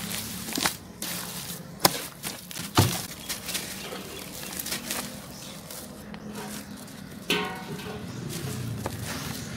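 Hands crumbling lumps of dried sand-cement over a tub of water: irregular crunching and crackling with a few sharp cracks, crumbs and powder dropping into the water. About seven seconds in there is a brief pitched squeak.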